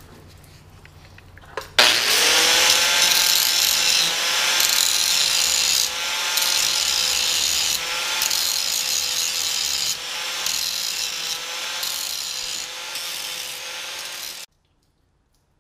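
Angle grinder spinning up about two seconds in and grinding down fresh weld beads on rusty sheet steel at a truck's windshield pillar, a steady whine under the rasp of the disc on metal. It stops abruptly about a second before the end.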